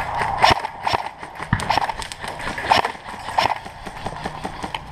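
Irregular hollow knocks and sharp clacks, four or five louder ones among many small clicks.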